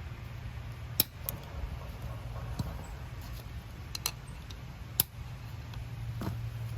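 Sharp metal clicks and taps of locking hub parts being handled and fitted back together, four or five separate clicks spaced over several seconds, over a steady low hum.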